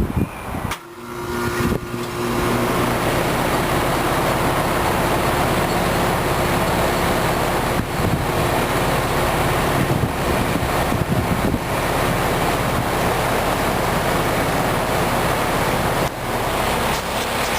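UPG (Coleman Evcon) heat pump outdoor unit starting up in heat mode. About a second in, a steady hum comes on with a rushing air noise that builds over the next second or so, then the unit runs steadily.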